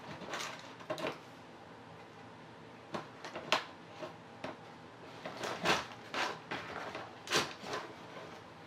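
Scattered light knocks and short scrapes of things being handled on a work table, irregular and a little louder in the second half.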